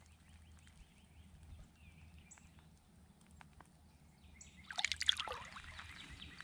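A short burst of water splashing about five seconds in, as a released bass hits the pond surface and swims off, after a few faint drips.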